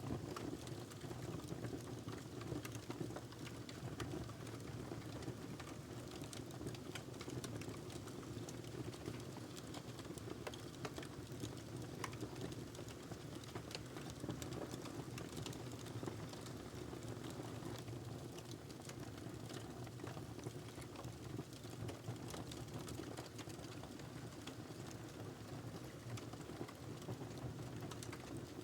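Wood fire burning in a fireplace: a steady low rush of flames with frequent small, irregular crackles and pops from the burning log.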